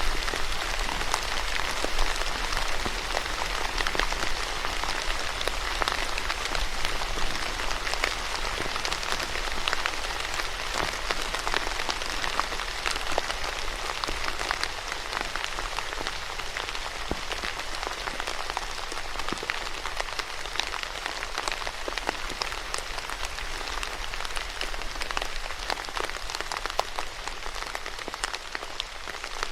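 Steady rain falling on a surface, a dense hiss of countless drops with individual drop ticks scattered through it.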